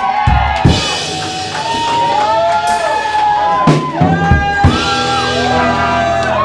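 Live jam band playing loudly: a drum kit with kick-drum hits and cymbal strokes under a lead line that slides up and down in pitch.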